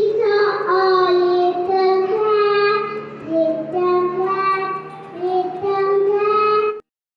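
A young girl singing a nursery rhyme, holding each note in short sung phrases; the singing stops abruptly near the end.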